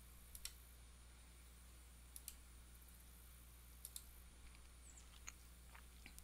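Faint computer mouse clicks: three quick press-and-release pairs spread over the first four seconds, then a few lighter ticks near the end, over a low steady hum.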